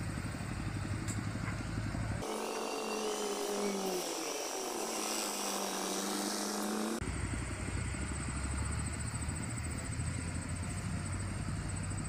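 An engine running with a low rumble; from about two to seven seconds in the sound switches abruptly to a thinner engine note whose pitch dips and then climbs.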